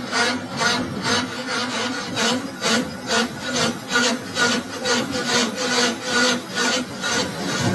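Metal lathe cutting the face of a spinning steel part. The tool scrapes in an even rasping pulse about two to three times a second, over a steady machine hum.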